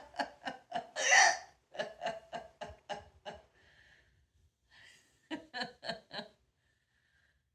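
A woman with the hiccups laughing in quick breathy bursts, about four a second, with one loud hiccup about a second in. After a short pause, a few more laughs come near the six-second mark.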